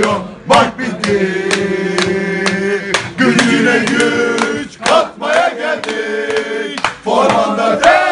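A group of men singing a football terrace chant in long held notes, with hand claps about twice a second.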